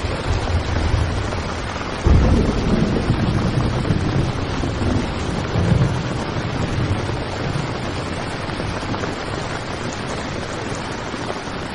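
Heavy rain falling on a tent, a steady hiss, with a low rumble of thunder that starts suddenly about two seconds in and rolls on for several seconds.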